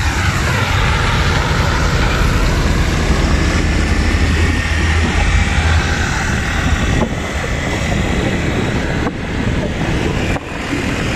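Motorbike riding along a street: a steady mix of engine and wind noise. A heavy dump truck's engine adds a low drone through the first half, fading after about six seconds.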